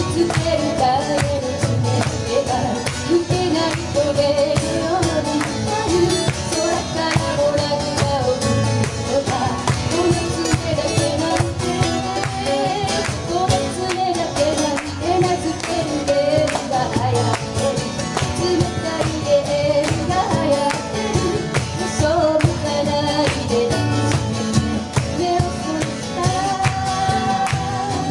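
Live acoustic band: a woman singing a melody, accompanied by strummed acoustic guitars and a hand-played cajón keeping the beat.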